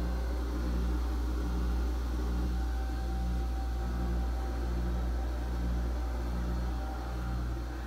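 Steady low machinery hum in a boat's engine room, with a slow regular throb about one and a half times a second.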